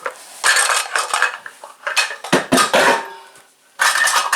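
Mixing bowls and measuring spoons clattering and clinking as they are handled and moved about on a pantry shelf. There are irregular bursts of rattling with a short pause near the end, then the clatter starts again.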